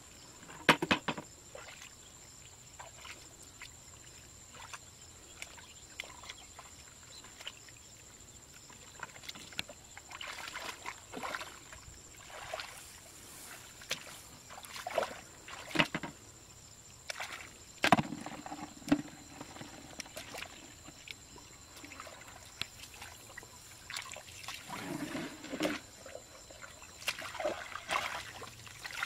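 Rubber boots and hands working through wet mud and shallow water: irregular squelches, sloshes and splashes, the loudest about a second in and again midway.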